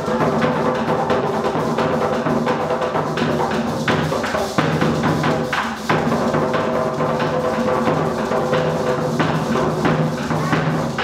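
Afro-Colombian mapalé music: fast, dense hand drumming with a steady melody held over it.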